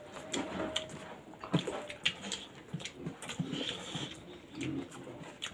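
Close-miked eating sounds: scattered lip smacks and clicks of people eating rice by hand, with several short, soft whiny calls between them.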